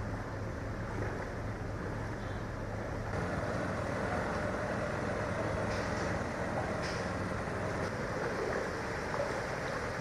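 Steady traffic noise on a flooded street, with vehicle engines running. A low hum in the first few seconds gives way, about three seconds in, to slightly louder noise.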